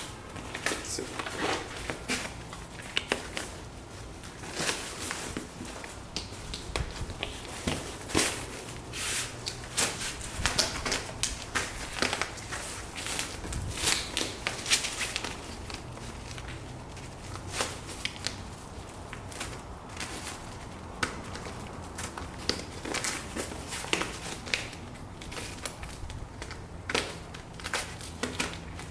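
Lawnmower grass-catcher bag being fitted onto its frame rod by hand: its clips are snapped on amid irregular clicks, snaps and fabric rustling.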